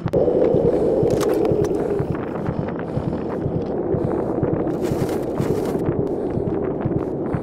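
Snowmobile engine idling steadily, with the crunch and scrape of a shovel digging into deep snow beside the stuck sled now and then.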